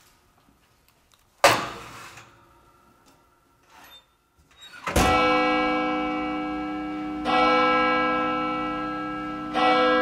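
A single metal clunk as the oven door of a range cooker is opened, then a church bell tolling: three strokes about two and a half seconds apart, each left to ring on, starting about five seconds in.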